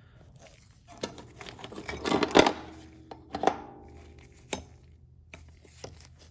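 Small metal tools clinking and clattering as they are picked up and set down in a toolbox tray: a handful of separate knocks and clinks, the loudest cluster about two seconds in, some leaving a short metallic ring.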